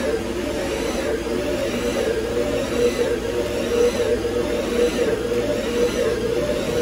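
CNC lathe running while machining stainless steel: a steady mechanical whir, with a faint whine that rises and falls about every second and a half.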